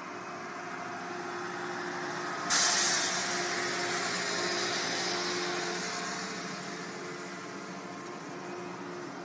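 A steady mechanical hum; about two and a half seconds in, a sudden loud hiss of escaping air starts and fades away over several seconds.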